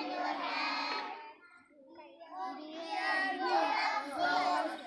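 A group of young children singing an action rhyme together, breaking off for about a second around a second and a half in, then starting again.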